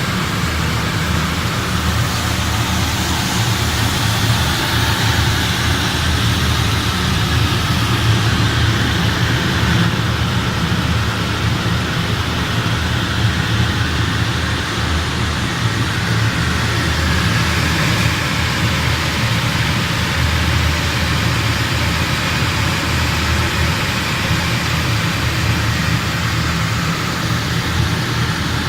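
Heavy fuel oil burners firing on steam boilers: a loud, steady, deep rumble of flame and burner fan with a broad hiss above it.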